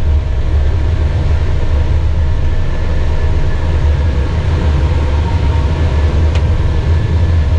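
Airbus A320 flight-deck noise in the initial climb just after lift-off: a loud, steady low rumble of airflow and engines, with a few faint steady tones above it.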